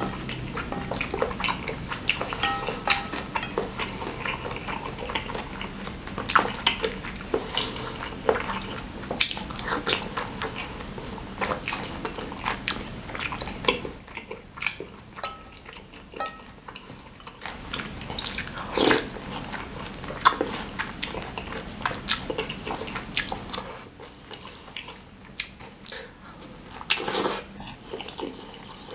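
Close-miked eating sounds: wet chewing, lip smacks and slurps of spicy chicken noodle soup with meatballs, with the clack of a wooden spoon and a fork against a ceramic bowl.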